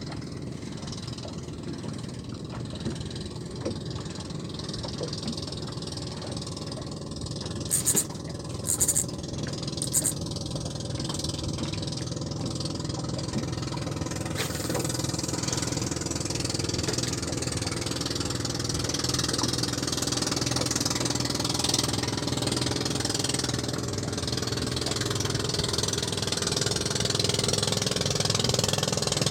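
Small boat's motor running steadily at low speed, a constant low hum. About a third of the way in come three short, very high-pitched hisses, and a rushing hiss builds through the second half as the whole sound grows louder.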